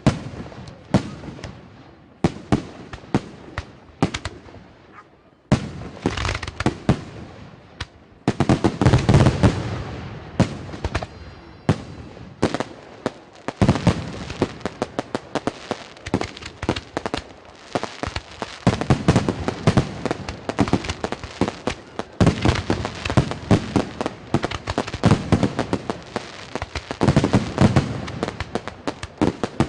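Fireworks display: a string of separate bangs, then dense salvos of booms and rapid crackling, heaviest about eight to ten seconds in and again near twenty and twenty-seven seconds.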